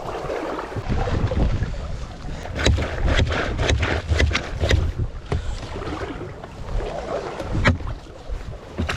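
Wind gusting over the microphone, with irregular sharp splashes and knocks starting about two and a half seconds in.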